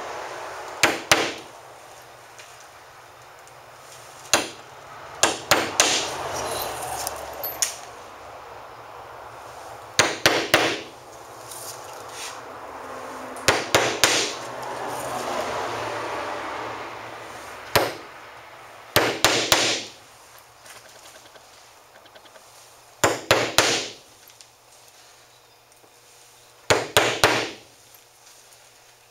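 A hammer driving nails through the edge of a fleshed beaver hide into a wooden board, tacking the pelt down in a ring. Short runs of two to four quick, sharp taps come every few seconds, some as single strikes.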